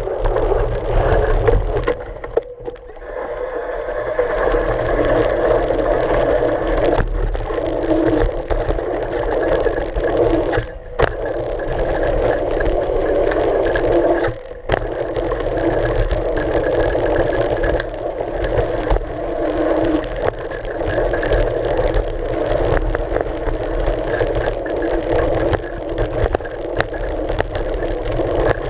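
Wind rush and tyre rumble of a mountain bike riding a dirt trail, picked up by a camera clamped on the front fork, steady with brief dips a few times.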